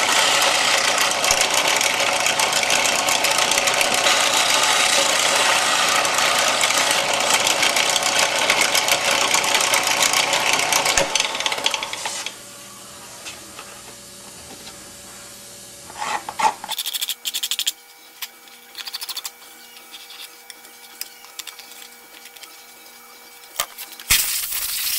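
Bench belt sander grinding the edge of a clear plastic wingtip nav-light lens: a loud, dense rasp that goes on for about twelve seconds. Then the grinding stops, leaving a much quieter steady hum with a few light knocks, and a short loud burst near the end.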